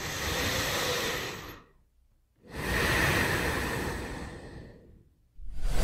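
A girl takes a deep, calming breath in, then after a short pause lets out a long breath that slowly fades away.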